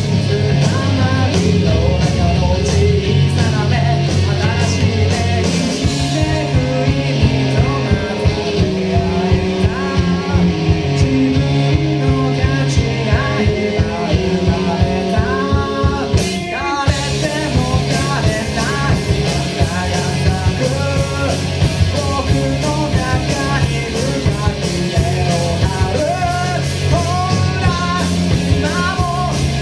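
Amateur rock band playing live, with a singer over electric guitars, bass and drums. The music breaks off briefly about halfway through, then comes back in.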